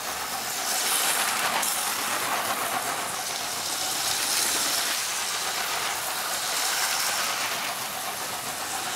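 LEGO 7939 cargo train running along plastic track, its electric motor and wheels making a steady hissing whir with no distinct clicks.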